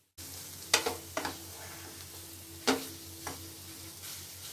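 Mawa (khoya) sizzling faintly as it roasts in a non-stick pan, stirred and scraped with a wooden spatula. The spatula knocks sharply against the pan a few times, loudest about a second in and near the middle.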